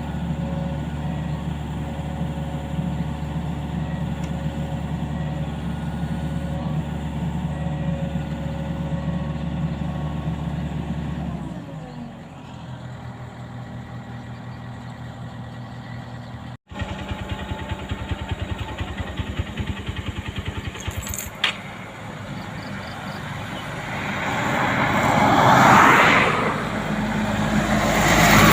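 A vehicle engine running steadily, its revs dropping about halfway through. After a sudden cut, an engine idles with a rhythmic pulse, and near the end two loud swells of noise rise and fall.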